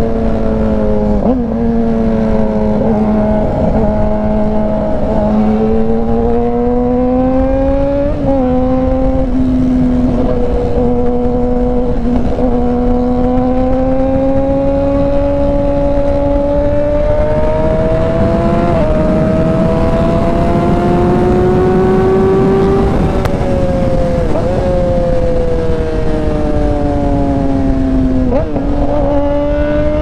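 2019 Yamaha R6's inline-four engine, breathing through an Austin Racing aftermarket exhaust, running at steady cruising revs under way. Its note slowly rises and falls with the throttle, with a brief hitch in pitch every few seconds, over a low rush of wind.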